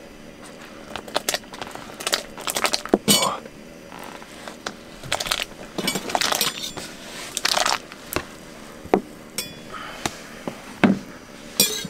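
Irregular clinks, knocks and scrapes of cookware and utensils being handled, with short rustling patches between the sharp strikes.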